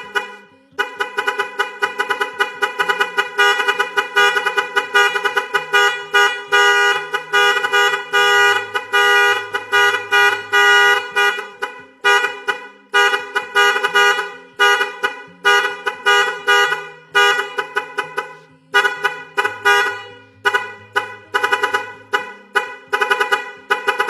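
Car horn sounding in fast repeated honks, several a second, with a steady pitch and low notes changing underneath every second or two; it breaks off briefly a couple of times.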